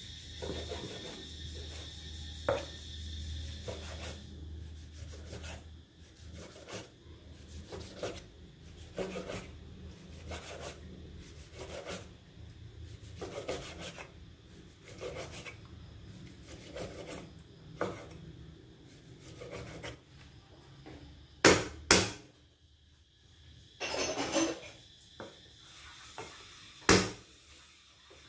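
A knife rubbing and scraping on a wooden cutting board as eggplant is cut, one stroke about every second. Near the end come a few loud, sharp knocks.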